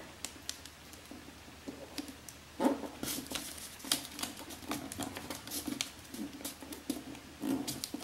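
A square sheet of origami paper being folded and creased by hand: irregular soft crackles and ticks of the paper, sparse at first and busier from about a third of the way in.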